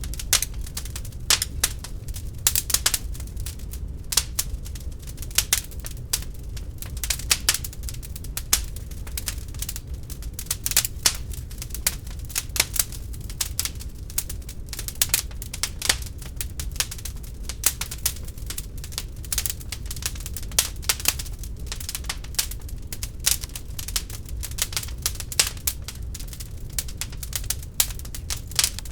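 Wood fire burning in a fireplace, crackling with frequent irregular sharp pops and snaps over a low steady rumble of the flames.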